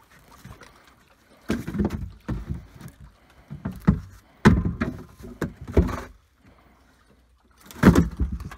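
Irregular heavy thuds and knocks as a large grouper is handled and set down into a plastic crate on the deck of a small fishing boat, starting about a second and a half in, with a last cluster near the end.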